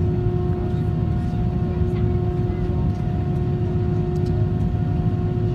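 Cabin noise of an Airbus A320 with its IAE V2500 engines at idle on the ground: a steady low rumble with a constant hum tone over it.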